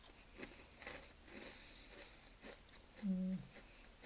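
Faint chewing and crunching of a crisp biscuit, with a short closed-mouth hum about three seconds in.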